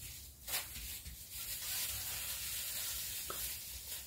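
A light knock, then a steady soft hiss for about three seconds.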